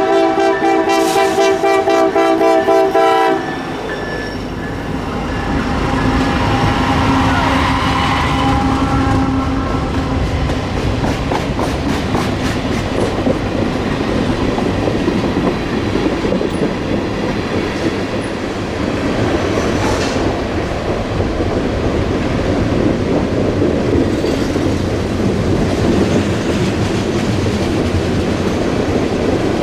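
Norfolk Southern SD70ACC diesel locomotive's air horn sounding a loud multi-note chord, cutting off about three seconds in. Then the train of freight cars and autoracks rolls past with a steady rumble and wheels clacking over the rail joints.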